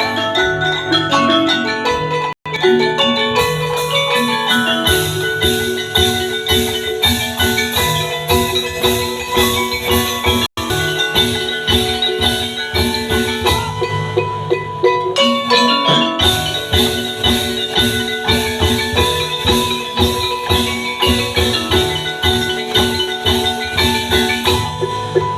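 Tongklek music: an ensemble of pitched percussion struck in a fast, even rhythm, playing a busy melody over a bass line. It cuts out for an instant twice.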